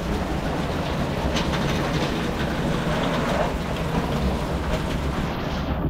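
Heavy rain pouring down steadily in a continuous, even rush.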